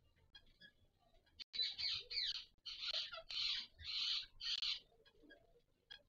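Indian ringneck parakeet giving a quick run of about six harsh, screechy calls, some sliding downward in pitch. They start about a second and a half in and stop a second before the end.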